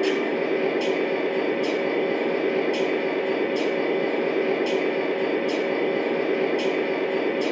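O scale model train running on its track: a steady rumble with a held hum, and a sharp click roughly once a second as the wheels pass over the track joints.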